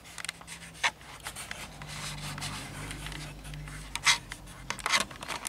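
Handling noise on a work table: rubbing and rustling with several sharp clicks, the loudest about four and five seconds in, over a low hum from about two to four seconds in.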